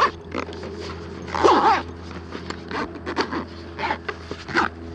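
Zipper on a semi-rigid EVA tool case being pulled, loudest about a second and a half in, with several short clicks and knocks from the case and tools being handled.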